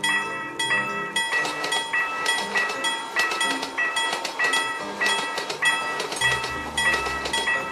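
Japanese railroad crossing alarm ringing its repeated kan-kan tone about twice a second while a train runs past over the rails with a clickety-clack, a low rumble joining near the end.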